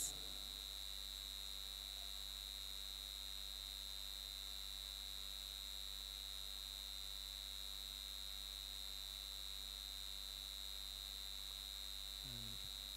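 Steady electrical hum from the sound system: a constant high-pitched whine over a low mains hum, unchanging throughout.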